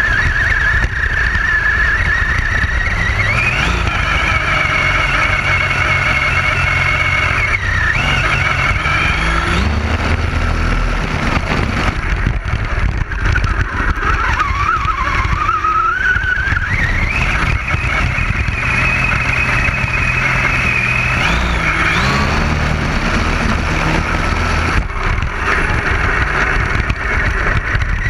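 Radio-controlled buggy's motor heard from a camera mounted on the car: a high whine that holds steady at speed, dips briefly about eight seconds in, sinks lower mid-way and climbs again as the buggy speeds back up.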